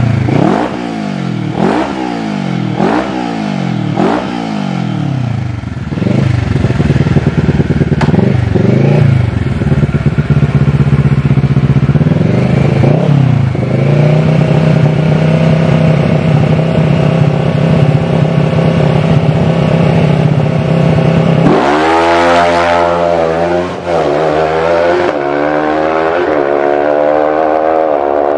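Superbike engines on the drag strip: the throttle is blipped in quick revs about once a second, then held at a steady high rev for about fifteen seconds. Near the end comes the launch, with the revs climbing hard and dropping back at each of several upshifts.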